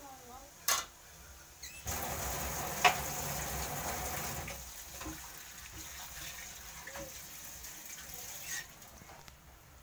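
Water running in a steady hiss that starts suddenly about two seconds in, is strongest for a couple of seconds, then fades and stops near the end. A sharp click comes before it and a single knock about three seconds in.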